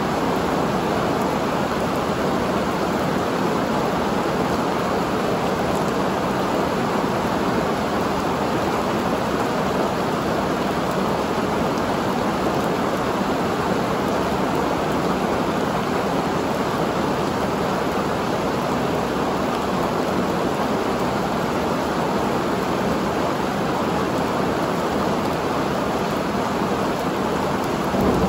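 Heavy rain falling steadily in a thunderstorm, a dense, even hiss.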